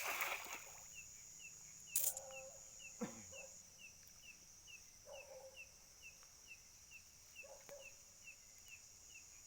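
A dog barking in the distance a few times, over a steady whine of night insects and a small insect chirping about twice a second. A brief rush of noise at the very start and a sharp knock about two seconds in, while a cast net is being thrown into the lake.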